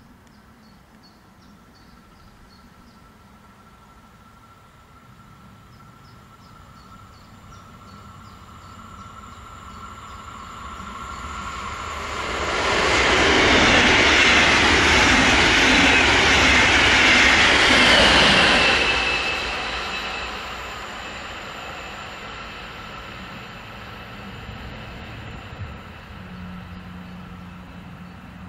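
Double-deck regional push-pull train approaching and passing at speed. It grows slowly louder, is loudest for about seven seconds from around twelve seconds in as the coaches rush by, then fades into the distance.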